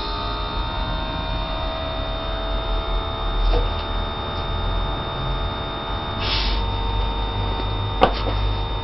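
Renault 5 GT Turbo's electric fuel pump running with a steady hum and whine under a fuel pressure test. The pressure is falling short of boost pressure, which could point to the old pump. A few light clicks, the sharpest about eight seconds in.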